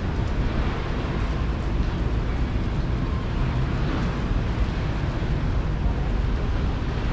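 Steady outdoor street noise dominated by a heavy low rumble of wind buffeting the action camera's microphone during a rainy walk.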